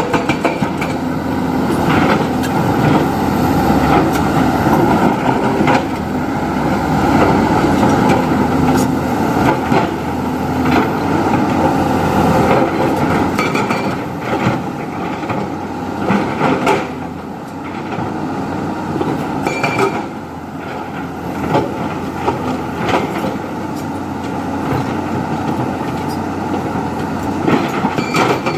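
Diesel engine of a JCB 3DX backhoe loader running steadily under work, with frequent short metallic knocks and rattles over the engine noise.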